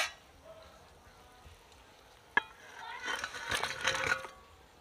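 Fried aar catfish pieces tipped from a steel bowl into a kadai of boiling curry gravy: a sharp metal clink about halfway, then a second or so of clattering and splashing as the pieces slide in.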